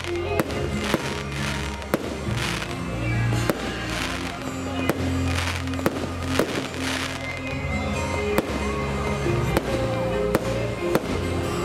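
Aerial fireworks going off, with sharp bangs about once a second and bursts of crackle, over music with a steady bass line.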